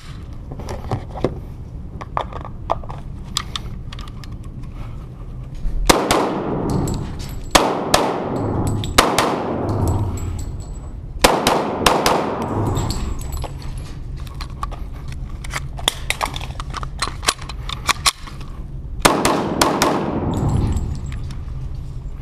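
Glock 21 .45 ACP pistol fired repeatedly in quick strings of shots, each shot followed by a ringing echo off the walls. For the first few seconds there are only lighter sharp clicks and knocks. After that the shots come in clusters until near the end.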